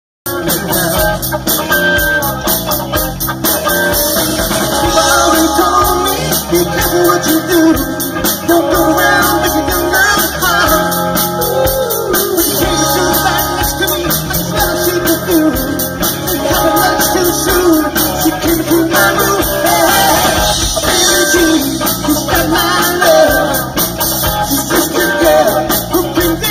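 Live rock band playing through a PA: electric guitar, bass guitar and drum kit, with a steady driving beat.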